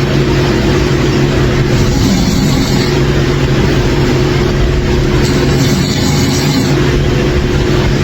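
A person snoring loudly, one rough snore about every three and a half seconds, over a steady background hum.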